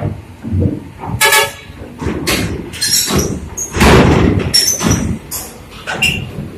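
A bus horn gives a short toot about a second in, among irregular knocks and clatter and the rumble of vehicles.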